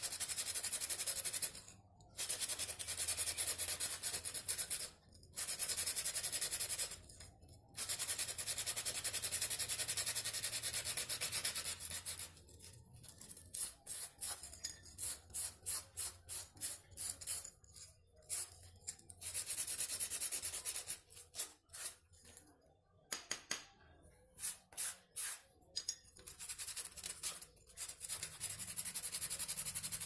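Sandpaper rubbed by hand over a small rusty steel part from a bike horn, scouring off the rust. A steady rasping hiss in long stretches broken by brief pauses, with a run of short, quick strokes through the middle.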